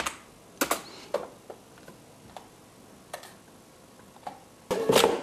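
Computer keyboard and mouse clicking: scattered single key and button clicks, with a louder clack near the end.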